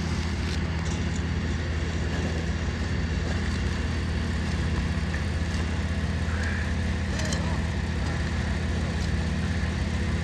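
A motor running steadily with a low, even hum, with a few faint light clicks over it.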